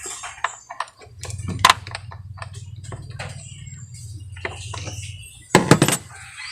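Scattered clicks and knocks from hand work on a Chevrolet Spin's air filter housing, with a louder clatter of knocks near the end.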